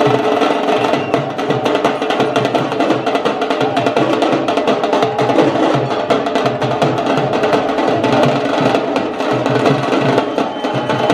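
Large double-headed drums beaten with sticks in a fast, driving rhythm, mixed with sharp wooden clacks of sticks.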